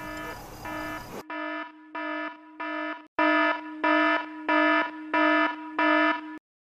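iPhone timer alarm going off: a repeating pulsed electronic tone, about two beeps a second. It gets much louder about three seconds in and cuts off near the end as it is stopped.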